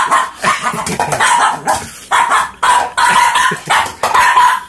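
Small mixed-breed dog barking repeatedly in quick succession, demand barking for food.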